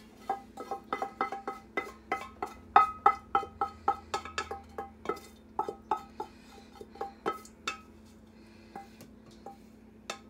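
Stainless steel inner pot of a Pampered Chef Quick Cooker knocked and scraped while food is emptied out of it into a ceramic bowl; each knock makes the pot ring at the same pitch. The knocks come quickly, about three or four a second for the first seven or eight seconds, then only a few scattered ones.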